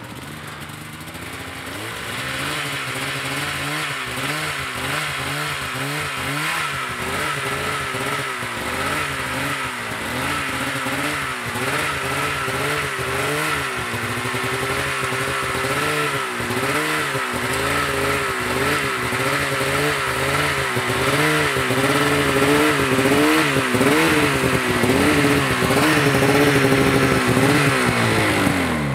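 Polaris RMK snowmobile's two-stroke engine under light, feathered throttle, its pitch rising and falling about once a second as the sled creeps slowly up out of deep snow back onto the trail. It gets louder as the sled comes closer, and the revs fall away sharply at the end as the throttle is released.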